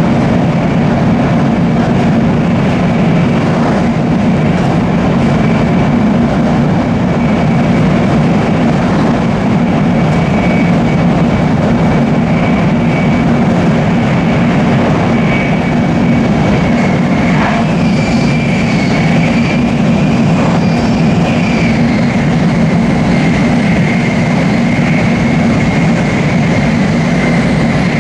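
Steady running noise inside a Nozomi Shinkansen bullet train cruising at speed: an even low rumble and rush of air and wheels on track, with a faint steady high whine over it.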